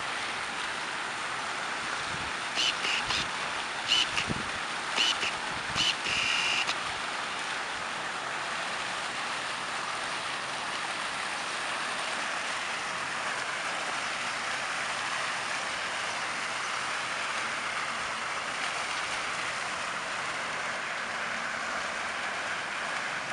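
Fountain jets splashing steadily into a stone basin: an even rush of falling water. Between about two and seven seconds in, a few short, louder high-pitched chirps sound over it, the last one held for about a second.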